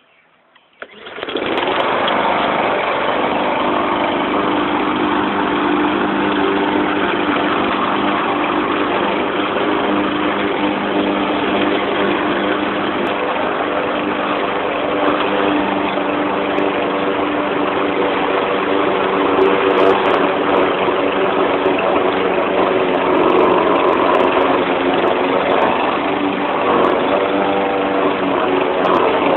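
YardMan push mower's 159cc PowerMore gas engine starting about a second in, then running steadily.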